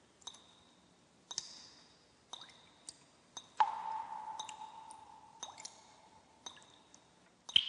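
Title-animation sound effects: about a dozen short clicking pings, each with a high ringing note, one for each letter as it lands. About three and a half seconds in, one hit carries a lower ringing tone that fades away over about two seconds.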